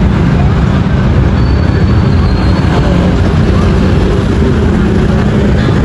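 Busy street traffic: a loud, steady din of vehicle engines and road noise.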